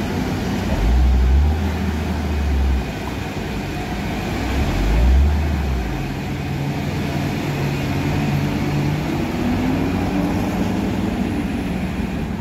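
Heavy diesel truck engines running hard on a steep, slippery climb, a steady low drone with two deep swells of rumble, about a second in and again around five seconds in.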